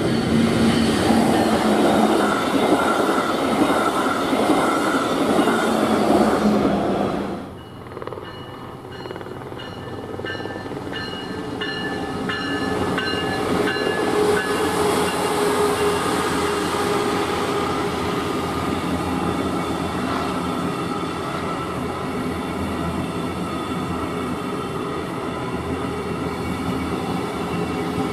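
Brightline passenger trains led by Siemens Charger SCB-40 diesel-electric locomotives passing at close range: engine and wheels on the rails, loud for the first seven seconds. The sound then drops suddenly where the recording cuts to a second train, which builds up again with a steady tone as its coaches roll by.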